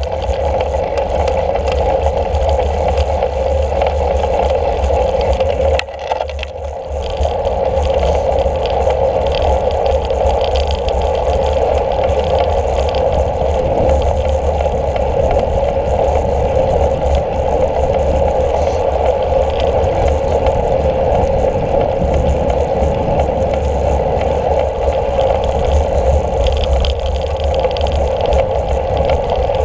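Steady wind and road noise picked up by a camera mounted on a moving road bike, with a constant rushing sound and a low rumble. It dips briefly about six seconds in.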